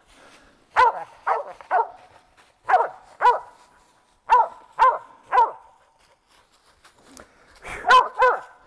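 Mountain feist barking at a treed possum: about ten sharp, high barks in quick runs of two or three, with a longer pause before the last pair.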